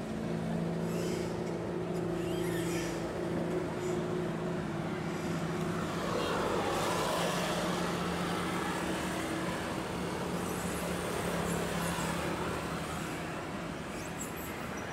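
Docked passenger ship MV Permata Obi's engines running with a steady low hum, under a crowd's murmur. A rushing noise swells about six seconds in.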